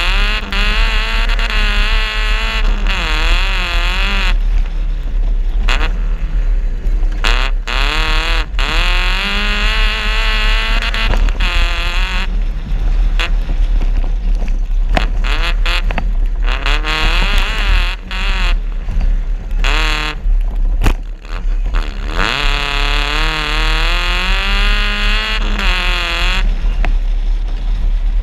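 Suzuki Vitara 2.0 GSI off-road car's engine revving hard, its pitch climbing and falling again and again as the throttle is worked, with short lifts off the throttle between pulls and a deep rumble underneath.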